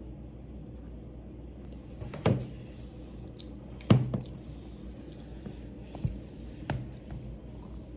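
Four short knocks or thumps over a steady low hum; the loudest comes about four seconds in, a slightly softer one just after two seconds, and two lighter ones near the end.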